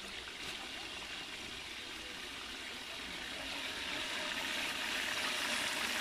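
Pieces of meat sizzling in hot oil in a kazan, the sizzle growing louder from about halfway through as more meat is laid in.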